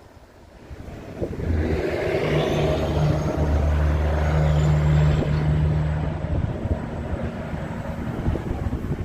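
A motor vehicle's engine running close by, growing louder about a second in, with a steady low hum and a thin high whine that rises and then holds, then easing off after about six seconds.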